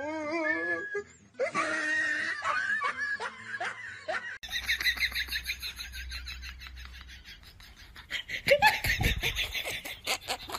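People laughing hard in a few short clips that change abruptly, with a long run of fast, rhythmic laughter from about four seconds in.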